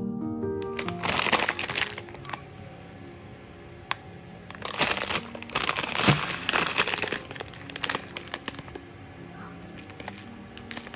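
Plastic packet of fine egg noodles crinkling as it is picked up and turned in the hand, in two bursts about a second in and around the middle, over soft instrumental background music.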